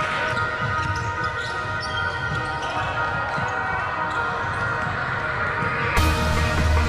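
Live sound of a basketball game on a hardwood gym court: a ball bouncing amid general game noise. About six seconds in, music with a heavy bass line cuts in abruptly.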